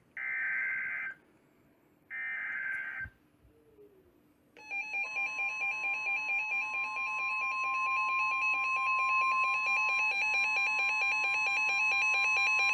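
Emergency Alert System SAME header: two one-second screeching digital data bursts a second apart, followed by the long steady 1050 Hz NOAA Weather Radio warning alarm tone, marking the start of a new flood-warning alert.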